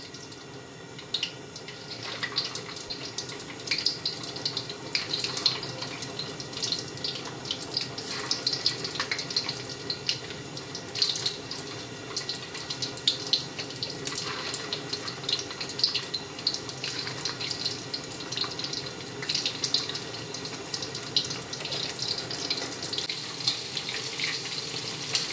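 Thai fish cakes deep-frying in hot vegetable oil in a wok: a steady sizzle with many small crackles as more patties go into the oil.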